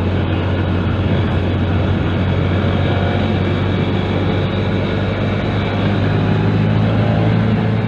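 Motorcycle engine running at a steady cruising speed, with a constant low drone and wind and road rush, heard from a camera mounted on the moving bike.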